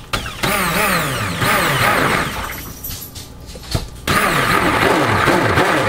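Epica immersion (stick) blender whirring in a plastic bowl of soap mixture, pulsed on and off, its pitch rising and falling as the motor speeds up and slows. It runs for about two seconds, dies down, and starts again about four seconds in.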